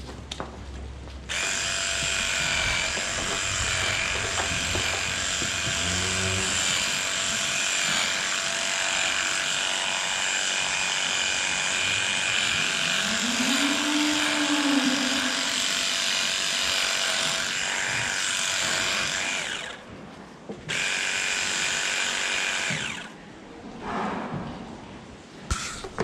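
Cordless electric clippers running as they trim the hair of a cow's tail switch, a steady high whine. It runs unbroken for about eighteen seconds, stops for a moment, then runs a few seconds more before cutting off.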